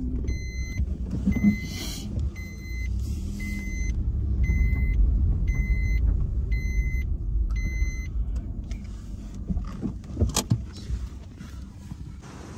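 Car engine and road rumble inside a slowly manoeuvring car, with an electronic warning chime beeping about once a second that stops about eight seconds in. A sharp click comes just after ten seconds.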